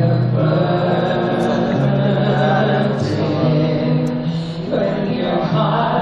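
Live amplified concert music: a female singer singing into a handheld microphone over a slow backing of long, held low chords that change every second or two.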